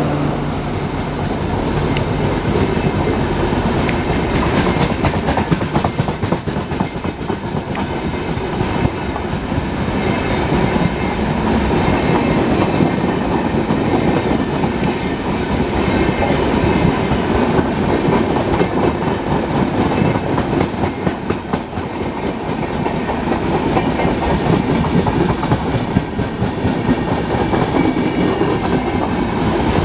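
LHB passenger coaches of an express train passing at speed: a steady, loud rumble of wheels on rail with rapid clicking as the wheels run over the rail joints.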